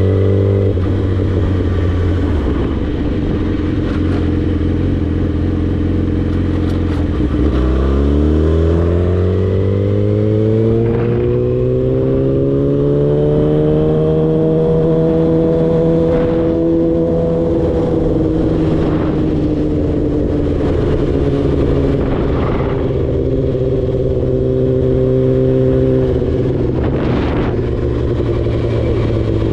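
Yamaha R6 inline-four engine under way, holding a steady pitch, then about eight seconds in the pitch drops and climbs smoothly for several seconds as the bike accelerates. It levels off, eases down slightly, and changes again near the end.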